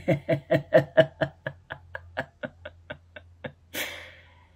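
A man laughing: a long run of short 'ha' pulses, about four a second, fading out over about three and a half seconds, followed by a breath.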